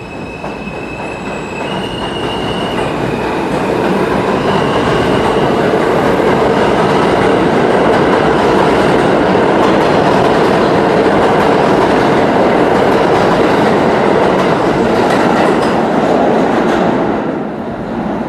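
R160 subway train accelerating out of an underground station. Its electric propulsion gives a whine that rises in steps as it pulls away, under a growing rumble and clatter of steel wheels on rail. The noise holds loud as the cars pass, then drops sharply near the end as the last car clears the platform.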